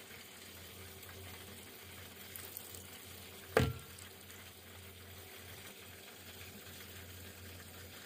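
Hot caramel sizzling and bubbling faintly as it is poured from a glass measuring cup into an aluminium cake pan, with one sharp knock about three and a half seconds in.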